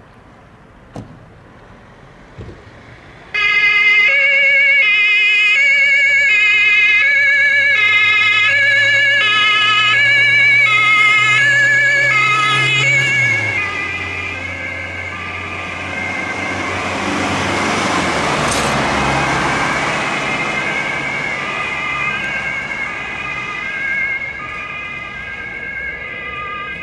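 A fire-brigade emergency vehicle's two-tone siren switches on suddenly about three seconds in and alternates steadily between two pitches over the engine. The vehicle drives past with engine and tyre noise loudest around the middle, and the siren carries on more quietly as it moves away.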